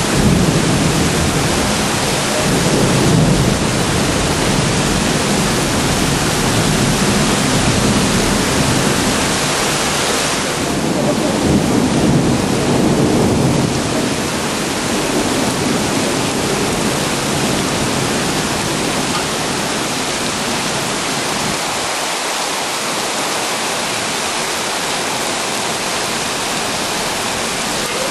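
Heavy rain with a low thunder rumble through the first half. The rumble fades about halfway through, leaving a steady rain hiss.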